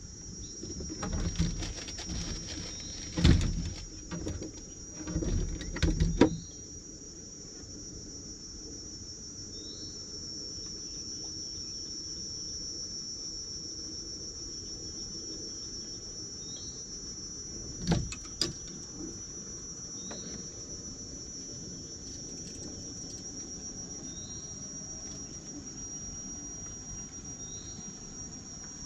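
Steady high-pitched insect drone, with a short rising chirp repeating every few seconds. Dull knocks and bumps from handling come through, several in the first six seconds and two about eighteen seconds in.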